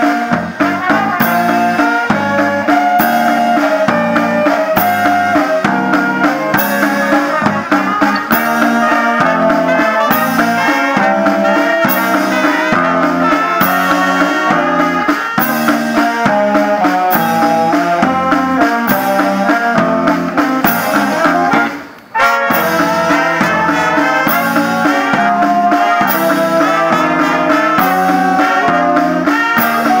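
Wind band of saxophones, trumpet and trombone playing a tune over a steady drum beat and electric bass. The music breaks off for a moment about two-thirds of the way through, then carries on.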